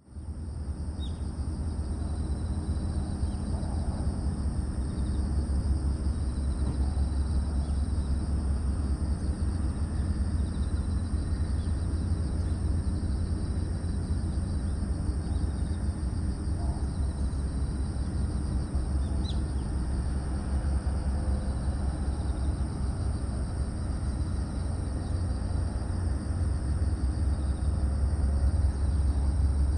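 Outdoor ambience: a steady low rumble, with a faint high hiss and a couple of brief bird chirps.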